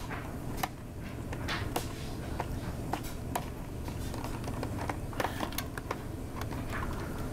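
Small screws being turned out of the plastic screen frame of an AST Ascentia J laptop: scattered light clicks and ticks of a small screwdriver and handled plastic, over a steady low hum.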